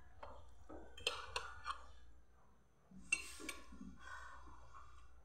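Metal fork clinking and scraping on a ceramic plate as food is picked up, with a few sharp clicks a little after a second in, then brief eating sounds.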